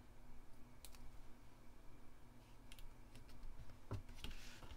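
Faint, scattered clicks and rustles of paper pieces being handled, as a die-cut paper flower is picked up and pressed down onto a card, with a soft thump about four seconds in.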